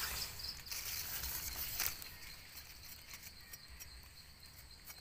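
Forest insects chirping steadily in a high, even pattern. Brief rustling and scraping sounds come at the very start and again about two seconds in.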